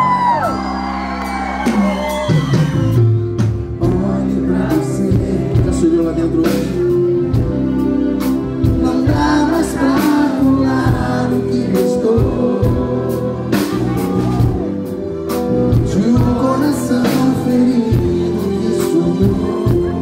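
Live band playing a Christian worship song, with a man singing lead over electric guitar, keyboard and drums. The drums come in about three seconds in and keep a steady beat.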